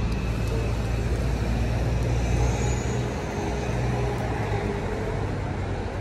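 Road traffic: a motor vehicle's low, steady engine hum over tyre and road noise, easing a little about halfway through.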